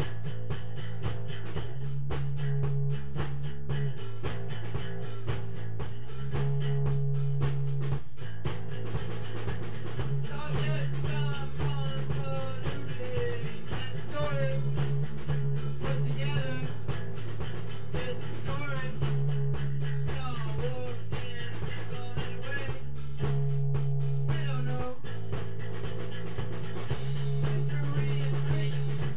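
Live rock jam: a low, held chord pattern alternating about every two seconds over a steady beat, with a lead line bending up and down over it from about ten seconds in until near the end.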